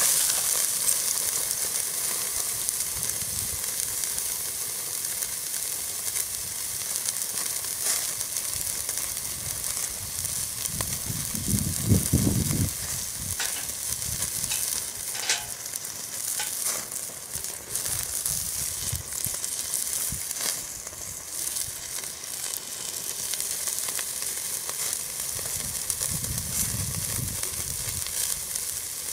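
Steak sizzling steadily as it sears on a grate set directly over a Weber chimney starter of burning lump charcoal, with scattered crackles and pops of fat. A brief low rumble comes about twelve seconds in.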